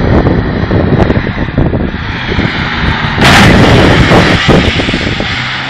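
A 4x4's engine running hard with rough knocking as the off-roader rams into a wrecked car, and a loud crunching burst of metal about three seconds in.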